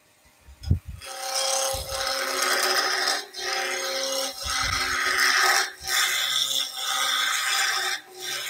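Skew chisel making push-pull cuts along a spindle blank turning on a wood lathe at high speed. Starting about a second in, the continuous cutting noise breaks off briefly between strokes, about five times.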